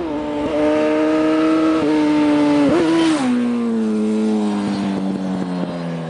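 Suzuki Hayabusa's inline-four engine accelerating hard, its pitch climbing with two brief dips at gear changes. About three seconds in it passes, and the pitch and loudness fall as it pulls away.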